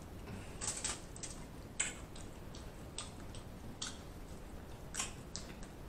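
Boiled crawfish being peeled by hand: shells cracking and snapping in short, sharp, irregular clicks, with a faint wet squish.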